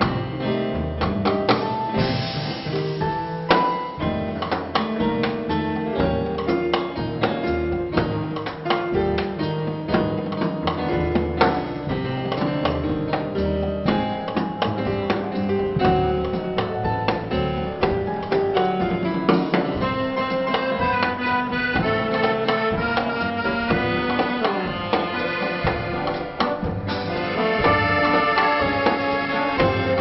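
Small vintage dance band playing an instrumental Latin-flavoured dance number, with drums keeping a steady beat under a melody line; the band gets fuller and brighter near the end.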